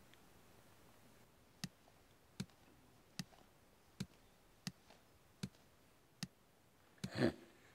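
Slow, even ticking, seven ticks a little under a second apart starting about a second and a half in, over a quiet room; a short, louder sound comes just after seven seconds.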